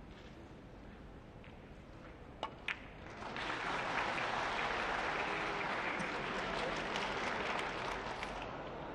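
Two sharp clicks of carom billiard balls being struck, about two and a half seconds in, then audience applause that breaks out for a few seconds after the shot and fades near the end.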